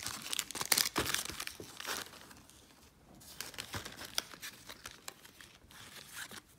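Hands gathering up Yu-Gi-Oh! trading cards and opened foil booster wrappers on a tabletop: rustling and crinkling with small sharp clicks, busiest in the first two seconds, then lighter handling.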